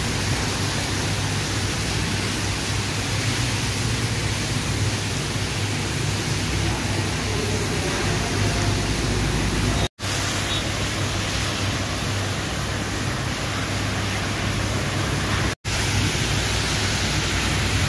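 Heavy monsoon rain falling in a steady, even rush. It breaks off to silence twice for an instant, about ten and fifteen and a half seconds in.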